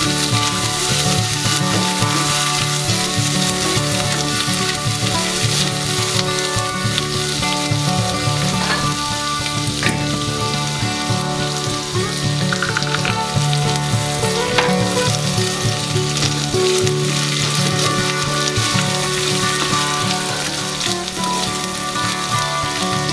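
Chopped coconut pieces frying in hot oil in a nonstick pan, sizzling steadily, stirred now and then with a spatula.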